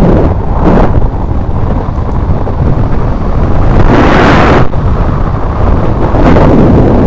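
Wind buffeting the microphone of a camera on a moving mountain bike: a steady low rumble with louder gusts about a second in, at about four seconds, and again near the end.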